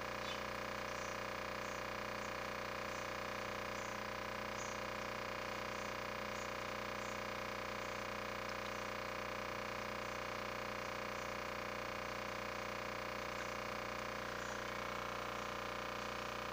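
A steady electrical-sounding hum made of many fixed tones, with faint soft ticks repeating about once a second.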